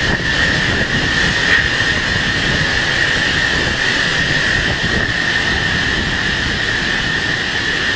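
Typhoon-force wind blowing hard and steadily with driving rain, a continuous rushing noise carrying a steady high whistle.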